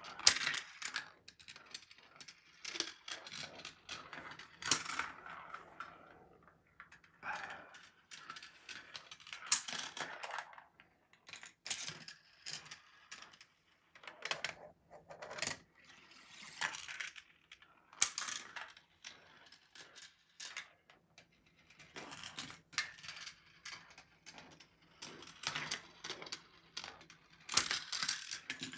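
GraviTrax marble run in action: steel marbles rolling along plastic rails and dropping through the plastic track pieces, making irregular clicks, clacks and short rattles with brief pauses between them.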